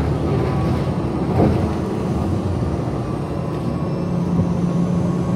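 Steady low rumble of a running vehicle, with a constant low hum.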